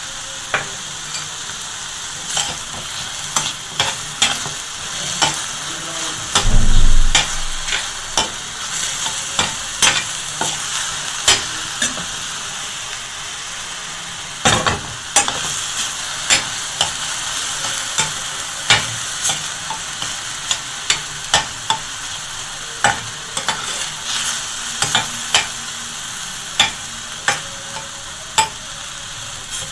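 Diced chicken with ginger and green chilli sizzling in a stainless steel frying pan, stirred and scraped with a metal spoon that clicks against the pan again and again. A loud low thud about six seconds in.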